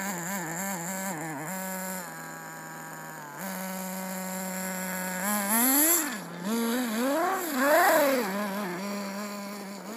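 Redcat Racing Tornado S30 nitro RC buggy's small engine revving up and down over and over in quick bursts. It drops to a steady lower drone for about a second and a half, about two seconds in, and the loudest revs come about halfway through and again near the eight-second mark.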